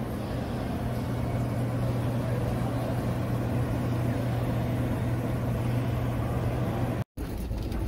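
Steady background noise of a large airport terminal hall, dominated by a constant low hum. The sound drops out briefly about seven seconds in.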